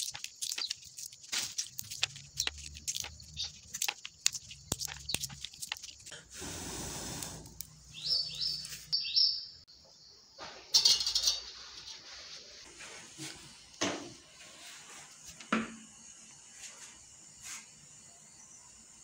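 Dry peanut shells cracking open by hand, a quick irregular run of sharp cracks and clicks. After about six seconds the cracking stops, giving way to a brief rush of noise and a few scattered knocks and clatters.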